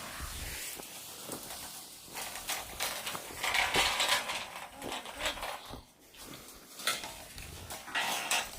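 Shovel blades scraping and clinking through dirt and gravel, a run of short metallic knocks and scrapes.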